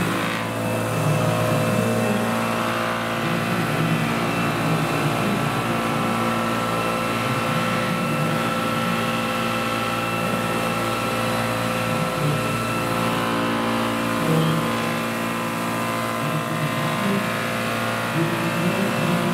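Electric Vario Boeing-Vertol CH-47 Chinook scale model helicopter hovering low, its electric motors and tandem rotors running with a steady whine.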